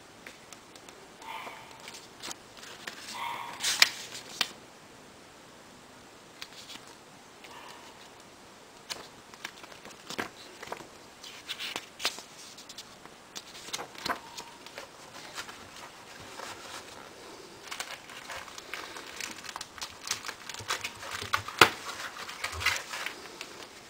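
Paper pages of a small instruction booklet being turned and handled, with irregular rustling and light clicks. Near the end there is busier rustling and clicking as the clamp meter is lifted and handled in its soft carrying case.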